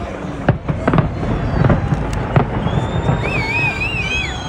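Fireworks display: several sharp bangs over a steady low rumble, then high wavering, gliding whistles in the last second and a half.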